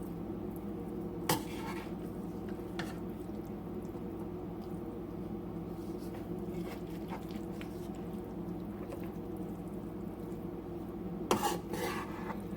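A spoon knocking and scraping against a cooking pot as rice and chicken are turned over and mixed: one sharp knock about a second in, a lighter one shortly after, and a cluster of clatters near the end, over a steady low hum.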